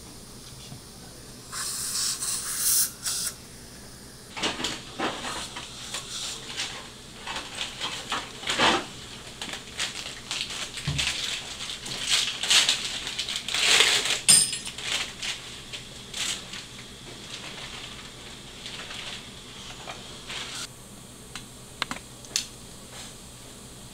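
Surgical suction aspirating in the mouth: irregular hissing and slurping bursts, the densest stretch a couple of seconds in, with a sharp metal click about 14 seconds in.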